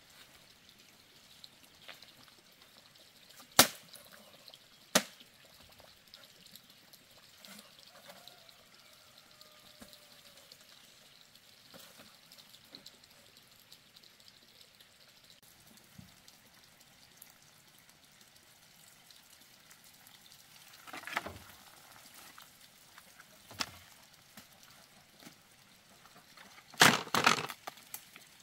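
Short splashes and pours of water against a quiet background, with two sharp knocks a few seconds in and a louder burst near the end.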